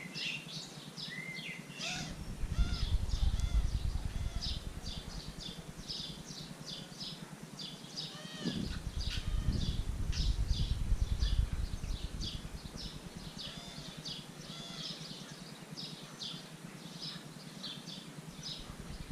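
Small birds chirping busily throughout in short, rapid calls. Two spells of low rumbling noise on the microphone, about two seconds in and about eight and a half seconds in, each lasting a few seconds, are the loudest parts.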